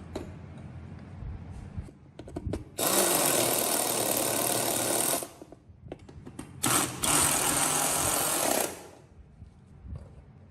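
A small handheld power tool run in two bursts of about two seconds each, with a few knocks and clicks before it starts.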